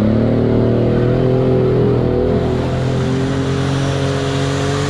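Mitsubishi Pajero's 3.0 V6 engine running hard at high revs under load as the automatic SUV pushes through deep mud, its pitch held nearly steady with a slight fall.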